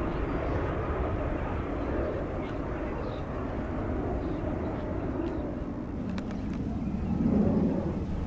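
Jet airliner engine noise, steady and even, swelling briefly near the end.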